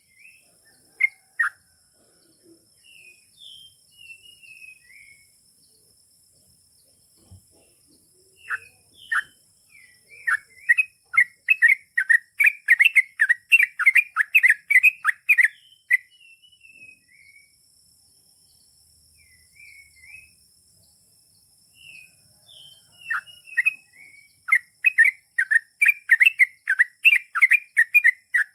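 Yellow-vented bulbul (trucukan) singing: long runs of rapid chattering notes, a 'ropel', with softer short whistles in the pauses between the runs.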